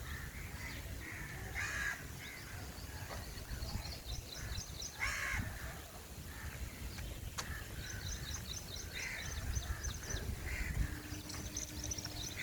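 Birds calling outdoors: a few harsh calls and repeated runs of rapid high chirps, over a steady low rumble.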